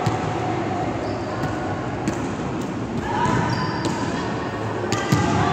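Volleyball rally in a large, echoing gymnasium: a few sharp slaps of the ball being hit, over players' voices and the hall's constant hubbub.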